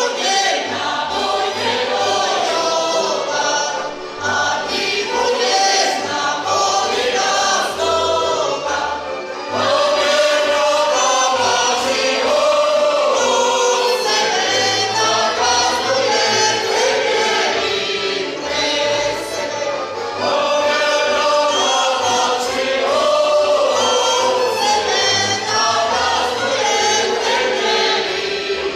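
Slovak folk singing group, mostly women's voices, singing a folk song together, with brief breaks between phrases about four and nine seconds in.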